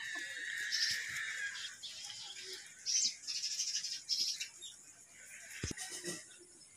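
Birds chirping in short high calls, with light rustling of dry straw being stuffed into a clay stove by hand.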